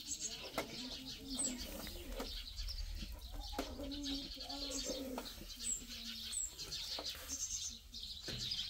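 Birds calling: short low held notes, about half a second to a second each, mixed with high, quick chirps. A few sharp clicks or knocks fall here and there.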